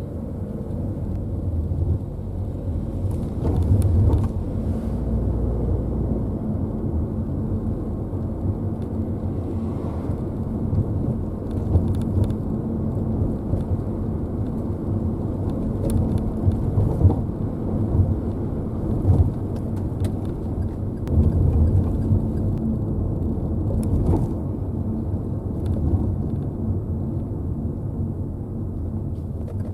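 Inside a Daihatsu Rocky 4WD driving over rough pavement: steady low road rumble with irregular rattles and clunks from the rear of the car, several sharper knocks standing out. The owner traced the rattling to a rear-seat latch that sits out of its proper position.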